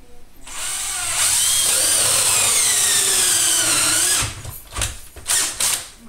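A cordless drill runs a hole saw through drywall. Its whine falls steadily in pitch as the saw cuts, then stops, and a few short spurts of the drill follow near the end.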